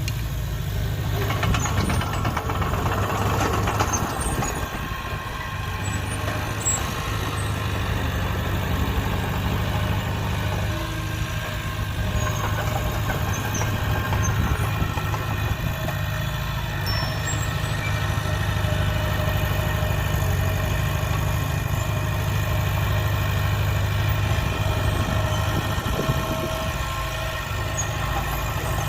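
Diesel engine of heavy earthmoving machinery running steadily, with a louder stretch of rattling and clatter about one to four seconds in.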